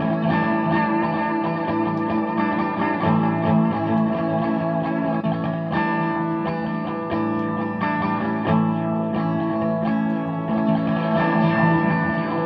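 Electric guitar played through the Boss MS-3 multi-effects switcher's built-in effects, notes struck and left to ring and sustain, a new note or chord every one to three seconds.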